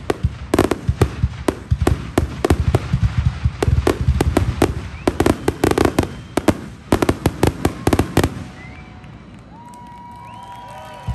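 Fireworks display: rapid volleys of aerial shells and firecracker-like reports crackling and banging in quick succession, with a low rumble under them. About eight seconds in the barrage stops suddenly, leaving a lull with a few gliding, whistle-like tones.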